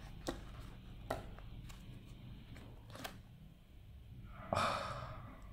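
Paper handling of a manga paperback as its pages are leafed through: a few soft clicks, then a short airy swish about four and a half seconds in.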